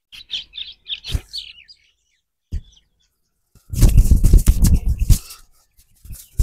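Small birds chirping a few quick notes, then a loud, dense run of hands rubbing and patting on a man's hair and scalp in a head massage, lasting about a second and a half, with a few separate strokes near the end.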